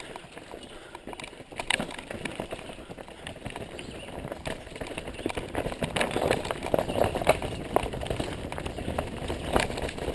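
Mountain bike rattling down a rocky trail: a steady rush of tyres over rock and dirt, broken by frequent sharp knocks and clatters as the wheels hit rocks. It gets louder and rougher about halfway through.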